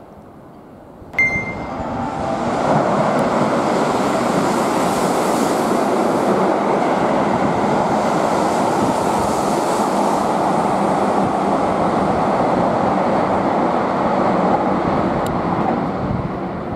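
Keihan 8000-series limited express passing through the station at high speed without stopping: a sudden short high tone about a second in, then a long steady rush and rumble of the cars going by, easing off near the end.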